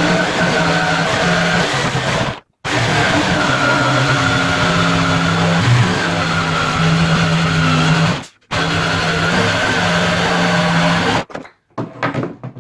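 Makita jigsaw running steadily as it cuts through a 20 mm plywood sheet. It stops briefly twice, about two and a half and eight seconds in, and stops for good near the end, followed by a few knocks of wood as the cut board is handled.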